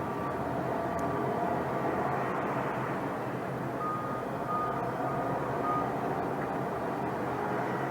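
Steady rumble of vehicle noise, with a vehicle's reversing alarm giving a run of short, evenly spaced beeps at one pitch, about two a second, in the middle.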